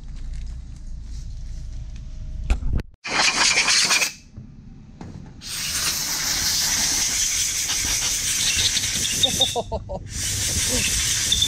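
Can of expanding spray foam hissing as foam is sprayed out: a short spurt about three seconds in, then a long spray broken by a brief pause near the end.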